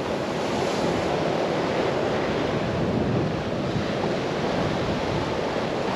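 Sea surf and wind blowing over the microphone, an even, steady rushing noise.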